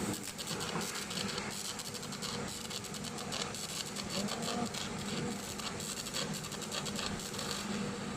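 TIG welding arc running: a dense crackling hiss over a steady low hum, easing off near the end.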